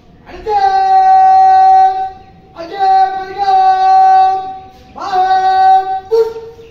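A drill commander's voice calling out words of command as long, drawn-out held cries: three sustained shouts, the middle one longest, then a short, sharper final call near the end.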